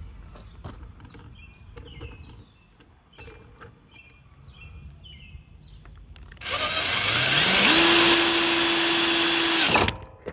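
Ridgid cordless drill drilling a hole in a Honda HRX mower deck beside the rear wheel. It starts about six seconds in, spins quickly up to a steady high speed, and stops abruptly near the end. Before it starts there are only faint clicks.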